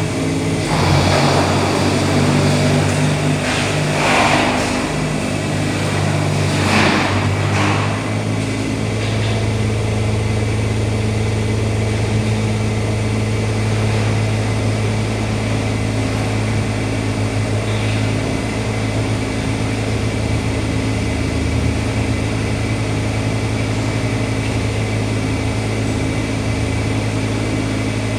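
Excavator engine running steadily. Over the first several seconds there are a few loud crashes or scrapes, typical of debris or a bucket being worked; after that only the steady engine hum remains.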